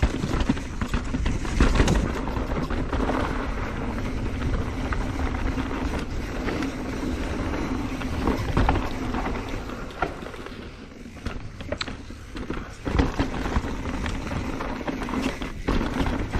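Mountain bike ridden down a rocky dirt trail: tyres rolling over dirt and rock with scattered sharp knocks and rattles from the bike, under steady wind rush on the camera microphone.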